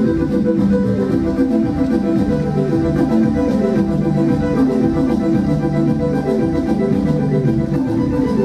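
Live electronic music played on synthesizers: layered, repeating sequenced note patterns over a steady low bed, with an organ-like tone, recorded on a phone from the back of the room.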